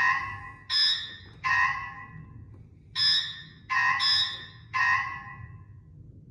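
NIU MQi GT scooter's electronic turn-signal sound: a chime-like beep repeating about every three quarters of a second, each one fading away, with a short break about two seconds in.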